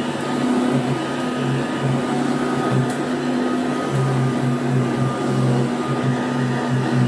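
A 1979 Goblin Housemaid GL888 upright vacuum cleaner running while it is pushed back and forth over carpet. Its steady motor drone carries a low hum that keeps cutting in and out.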